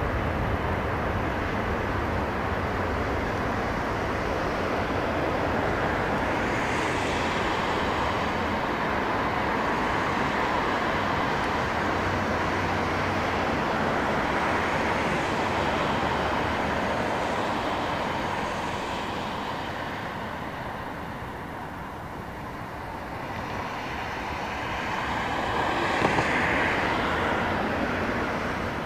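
Condor Airbus A330-900neo's twin jet engines at takeoff thrust: steady jet noise through the takeoff roll and climb-out. It dips about two-thirds of the way in, then swells again near the end.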